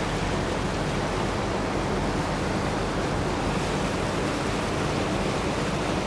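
Steady rushing noise of wind and water on a moving river tour boat, with a faint low engine hum underneath.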